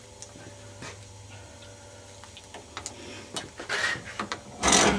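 Light clicks and taps of a plastic laptop charger brick being handled and set into a bench vise over a steady low hum; near the end a loud rasping scrape starts as the vise is tightened on the charger.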